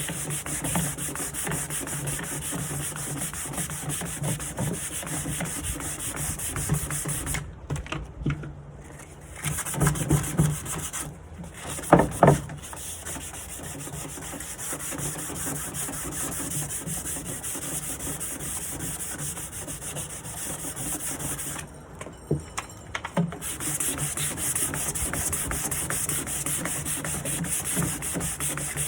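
Sanding the front of a varnished wooden nightstand drawer: a continuous abrasive hiss over a steady low hum. The sanding breaks off twice for a second or two, and a few knocks come near the middle. It is a light sanding to take off the old varnish before priming.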